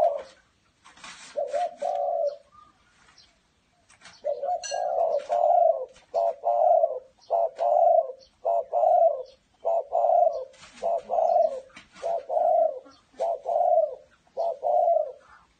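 Zebra (Malay) dove cooing: a couple of short coos, then after a brief pause a long run of short staccato coos at about one a second.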